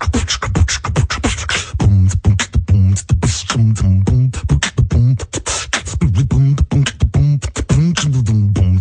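Human beatboxing: a fast run of sharp mouth-percussion hits, with a low hummed bass line sung under the beat from about two seconds in.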